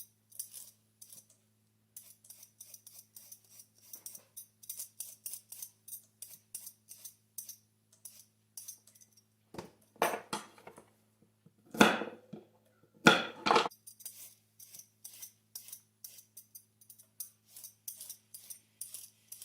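Vegetable peeler scraping down carrots in quick, repeated short strokes, with a few louder clatters about halfway through.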